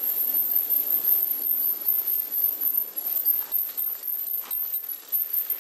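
Light metallic jingling and rattling close to the microphone, a run of irregular small clinks with a thin high ringing.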